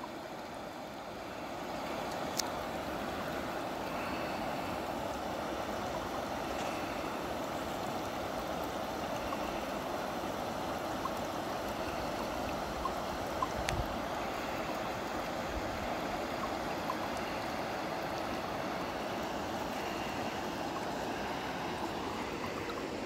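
River water rushing over a shallow rocky riffle: a steady, even rush of flowing water.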